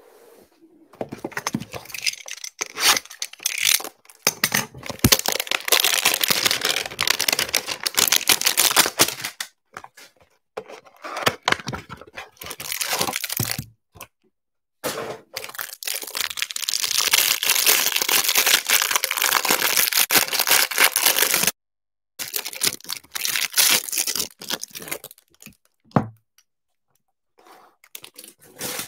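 A cardboard Panini Playoff football card hanger box being torn open and the clear plastic wrap ripped and crinkled off the stack of cards inside. It comes as several long stretches of tearing and crinkling, with short breaks between them.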